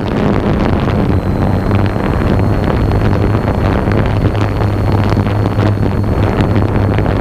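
Drone motors and propellers humming steadily, with wind buffeting the onboard camera's microphone. A faint high whine joins about a second in.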